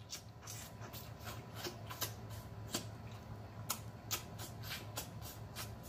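Close-miked mouth sounds of eating turkey neck: many small wet smacking and sucking clicks, irregular, several a second, as the meat is worked off the bone.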